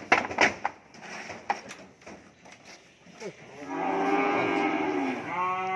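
Cattle hooves knocking on a wooden loading ramp and truck bed as a cow climbs aboard. This is followed by a cow mooing: one long call about two-thirds of the way in, and a second starting near the end.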